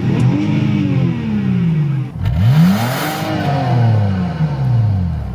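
A car engine free-revving twice with the car in Park: each rev climbs quickly and sinks back slowly to idle, the second starting about two seconds in.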